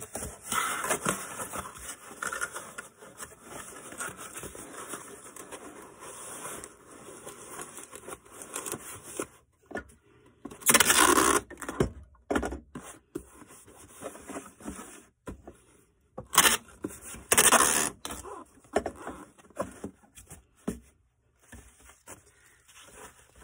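Rustling and scraping of a toy pony being packed into a small cardboard box, with two brief, much louder tearing noises about ten and sixteen seconds in.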